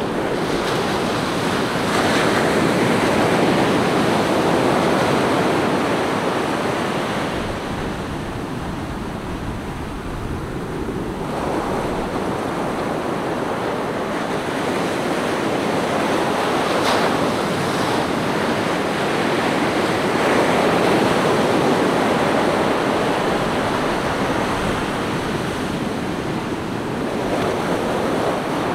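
Ocean surf on a sandy beach: small waves breaking and washing up the sand, the rush swelling and easing every several seconds, with a quieter lull about eight seconds in.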